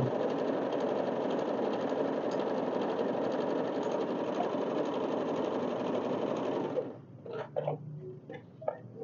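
Yamata FY-930 portable sewing machine running steadily as it stitches, stopping suddenly about seven seconds in. A few light clicks and knocks follow.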